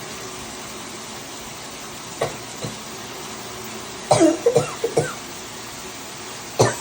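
A woman coughing: two small coughs a little after two seconds in, then a fit of four or five coughs about four seconds in, and another cough starting just before the end.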